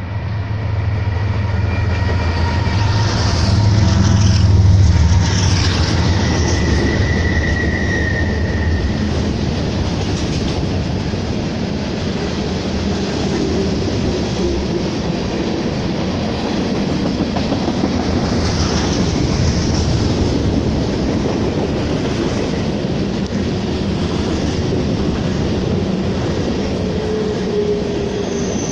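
BNSF manifest freight train passing close by. The lead diesel locomotives' engines run loudest in the first several seconds as they go by, then the freight cars roll past with steady wheel-on-rail noise. A brief high-pitched squeal comes about seven seconds in.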